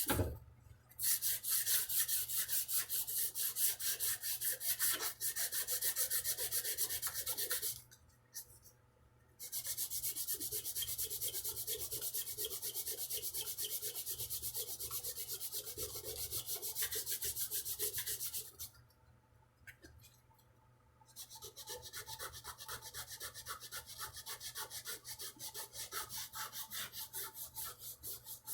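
Sandpaper rubbed back and forth by hand on the wooden neck of a Ural guitar, sanding away the old red finish. The strokes come in three long stretches with two short pauses.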